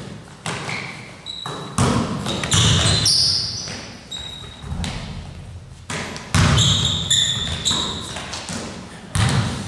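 Pickup basketball play in a large, echoing gym: a basketball bouncing on the gym floor with hard thuds, and sneakers squeaking in short high squeals as players scramble for rebounds.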